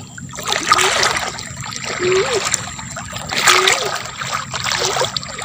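Footsteps wading through shallow marsh water, a splash with each stride about every one and a half seconds. Each step comes with a short low-pitched sound.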